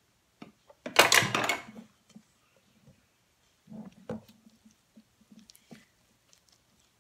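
Gloved hands squishing and pressing sticky-rice filling into a deboned whole chicken: soft, moist handling noises in short scattered bursts. About a second in comes a brief, louder rustling noise.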